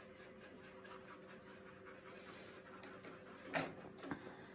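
Soft coated wheaten terrier puppy gives a short, sharp breathy huff about three and a half seconds in, then a smaller one, as it shakes its head. A faint steady hum underneath.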